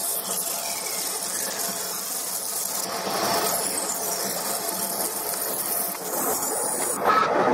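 TOS SN63B lathe taking a heavy facing cut on a steel wheel hub with a high-feed carbide insert, chips curling off the tool; the cutting noise gets louder about seven seconds in.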